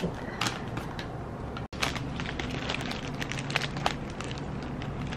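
Crackling rustle of paper and plastic cookie wrapping being handled, with a run of light clicks and crinkles, over a steady low room hum.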